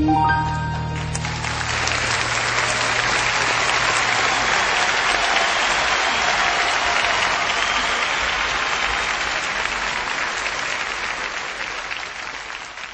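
Concert audience applauding as the last held notes of the band's song die away about a second in; the clapping then fades near the end.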